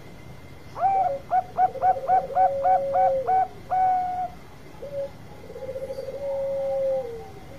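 Bangkok zebra doves (perkutut) cooing. A quick run of about ten clipped coos at roughly four a second ends in a longer held note, over a lower rolling coo that ends in a long note sliding down. A second lower rolling coo with a falling end follows near the end.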